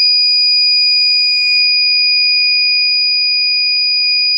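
The alarm buzzer of a powered 12 V car power inverter sounds one continuous, steady high-pitched beep.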